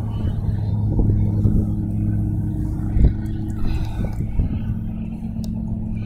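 A motor vehicle's engine running with a steady low hum, under a dense low rumble of wind on the microphone.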